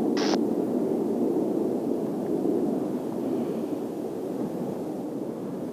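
Distant Kawasaki T-4 jet trainers' turbofan noise, a steady dull rush that slowly fades, with a brief burst of hiss near the start.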